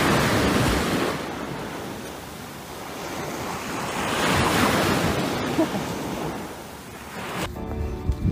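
Wind and surf on a beach: a broad rushing hiss that swells and fades twice, with wind rumbling on the microphone. Near the end it cuts to background music.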